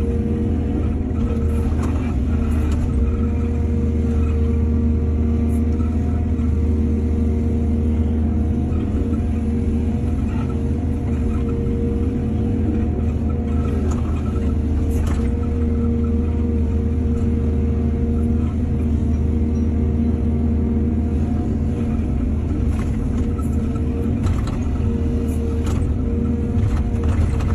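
Excavator's diesel engine running steadily under load, with scattered short knocks and clanks.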